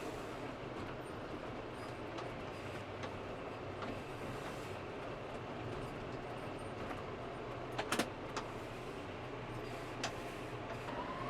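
An engine running steadily with a low hum, with two sharp knocks about eight seconds in and another about two seconds later.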